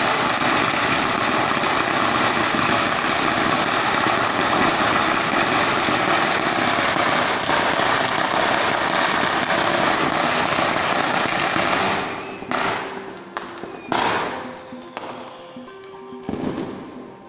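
Firecrackers going off in a dense, rapid crackle for about twelve seconds, which stops abruptly. A handful of separate bangs follow.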